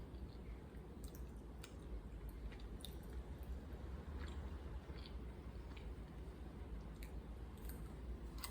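A person chewing food with the mouth close to the microphone: soft, wet mouth sounds and small scattered clicks, over a steady low hum.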